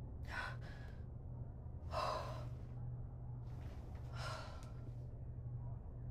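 A woman breathing heavily in panic: three loud, ragged breaths a second or so apart, the second the loudest, over a steady low hum.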